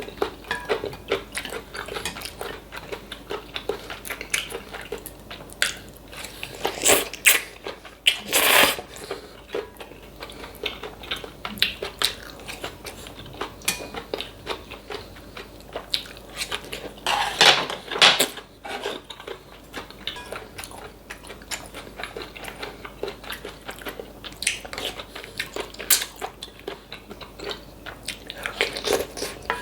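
Close-miked mukbang eating of mushroom kalguksu noodles with kimchi and gimbap: steady wet chewing and biting with many small clicks. A few louder, longer sounds come about a quarter of the way in and again past the middle.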